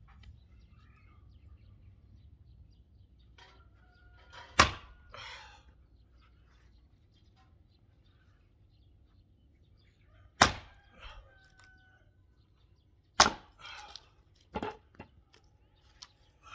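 Heavy axe chopping and splitting firewood logs: four sharp strikes, the first about four and a half seconds in, the second around ten seconds, then two more close together near the end, each followed by a brief crackle of splitting wood.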